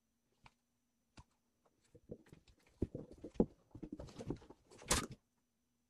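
Kitten scrambling inside a sheet-metal heating duct: irregular scrabbling and clattering knocks on the metal, two faint clicks first, then a busy run that is loudest just before it stops.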